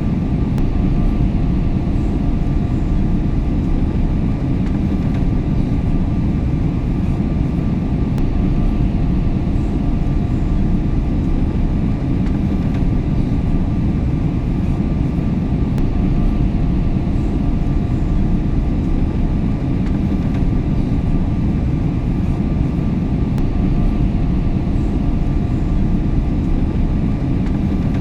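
Aeroplane cabin noise in flight: a steady low rumble of engines and rushing air, with faint, even hums above it.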